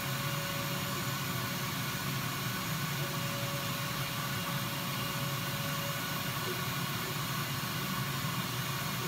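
30 W air-cooled CO2 laser cutter running while cutting plexiglass: a steady whirring drone with a faint thin whine that comes and goes.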